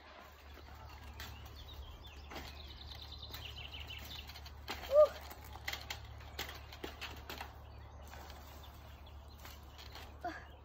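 Wire chain-link fence clinking and rattling as a child climbs over it, with birds singing in the background, one trilling a quick run of repeated notes a few seconds in. A short, loud squeak about halfway through is the loudest sound.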